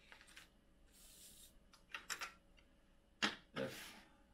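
Handling noise at a workbench: a faint rustle of a small plastic bag of heat-set inserts, then a few small clicks and two louder knocks as 3D-printed plastic parts are picked up and set down on the wooden bench, the loudest in the last second or so.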